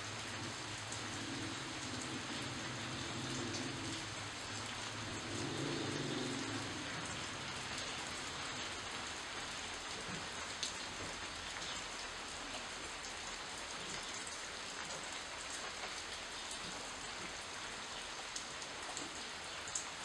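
Steady rain falling on shrub leaves, with now and then a louder single drop ticking close by.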